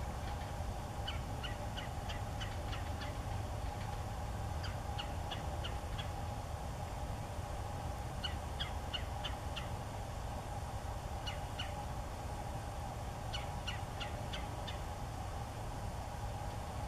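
Bald eagles at the nest giving bouts of short, high chittering notes, several quick notes to a bout, five bouts in all, over a steady low background rumble.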